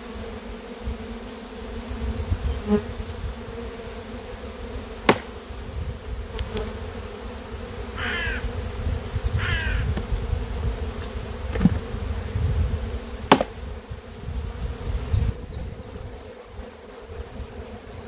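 Steady buzzing hum of a large honeybee colony disturbed while its hive is opened and the bees are shaken into boxes. A few sharp knocks of wooden hive boxes being handled cut through it, and two short bird calls come in about halfway through.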